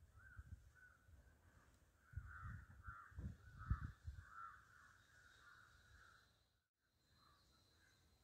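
Crows cawing over and over in the background, with a few low thuds about two to four seconds in; the sound drops out briefly near the end.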